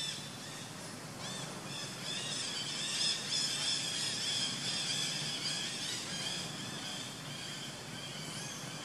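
Forest ambience: a dense chorus of high, rapidly repeated chirping calls, loudest in the middle, over a low steady hum.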